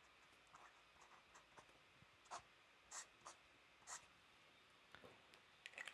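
A pen writing on paper: a few faint, short scratching strokes from about two to four seconds in, otherwise near silence.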